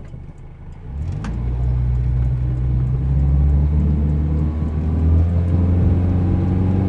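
1977 Honda Civic CVCC's inline four-cylinder engine pulling away from a stop in range one of the Hondamatic automatic, heard from inside the cabin. About a second in, the engine note gets louder, then it climbs slowly in pitch as the car gathers speed.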